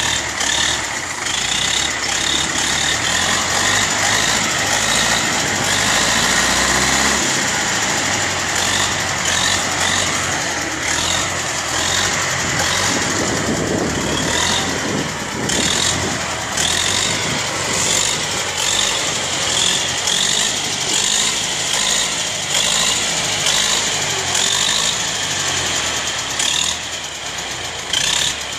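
U-650 farm tractor's four-cylinder diesel engine running with a steady clatter as the tractor drives close by.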